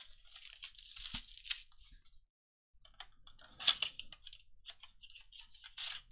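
Plastic shrink-wrap crinkling as it is torn off a trading card blaster box, then the cardboard box being opened, with rustling and small ticks and one sharper crack about three and a half seconds in.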